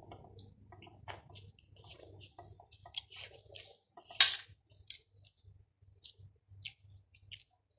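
A person chewing food: soft, irregular wet mouth clicks and smacks, with one sharper click about four seconds in.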